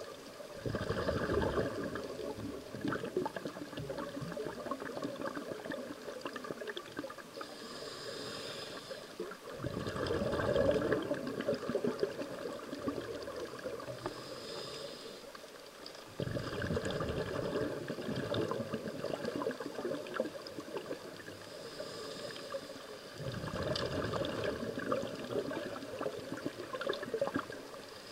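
A scuba diver breathing through a regulator underwater: a short hiss on each inhale, then a longer burst of bubbling on each exhale. The cycle repeats about every seven seconds, with four exhales heard.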